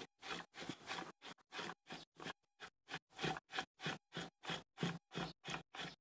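Knife scraping the salt-and-flour-softened lining off raw tripe in quick, faint, repeated strokes, about three or four a second.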